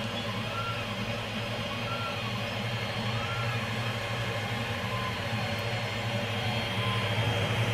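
TEVO Tornado 3D printer printing: its stepper motors give short whines that rise and fall in pitch every second or so as the print head speeds up and slows, over a steady low hum.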